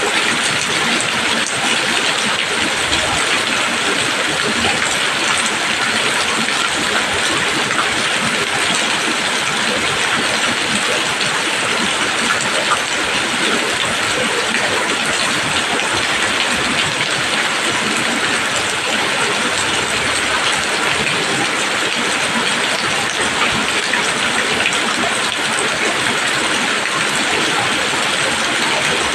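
Steady rain falling on leaves: an even, unbroken hiss of drops, strongest in the upper-middle range.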